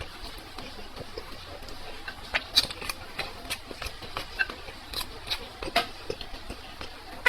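A person chewing and eating food close to the microphone: irregular wet smacks and clicks of the mouth, sparse at first and more frequent from about two seconds in.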